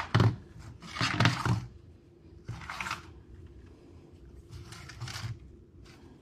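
Hands working a fishing rig of shock-leader line: four short rustling scrapes of line and tackle being handled over the first five seconds or so.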